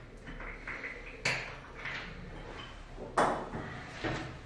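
Burpees on a hard floor: hands and feet landing with sharp thuds, a loud one about a second in and another about three seconds in, then a lighter knock near the end.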